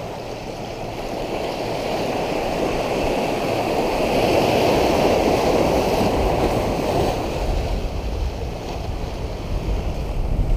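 Ocean surf breaking and washing against a lava-rock shoreline. It swells to its loudest about halfway through, then eases.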